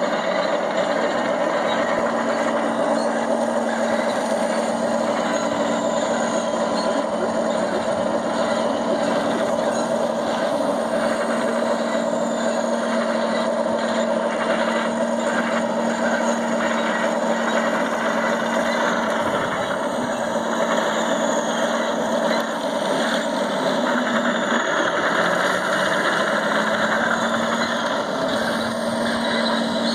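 Radio-controlled model Maus tank driving, its sound unit playing a steady tank-engine drone.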